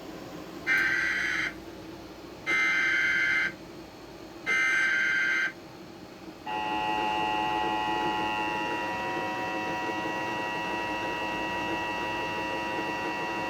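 Emergency Alert System header: three short bursts of warbling digital data tones, each about a second long, announcing a new alert. About six and a half seconds in, the steady, piercing EAS attention tone starts and holds.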